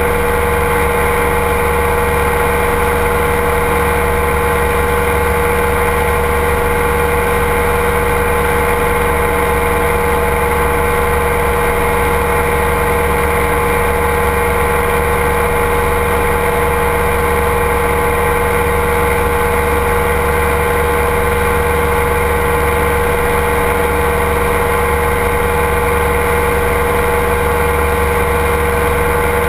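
Ultralight aircraft's engine and propeller droning steadily in cruise flight, one unchanging pitch, with a rush of air over the wing-mounted camera.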